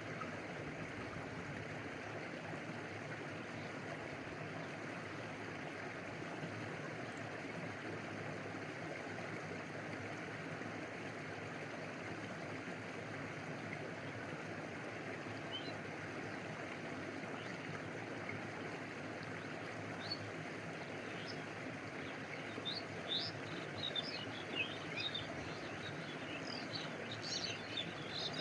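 A stream flowing steadily, water rushing and lapping. High short chirps join about two-thirds of the way in and grow more frequent near the end.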